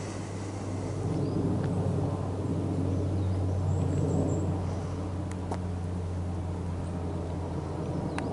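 Airbus A340-600 airliner's four Rolls-Royce Trent 500 jet engines heard from far below as it climbs out: a low steady rumble that swells about a second in and eases after about four seconds.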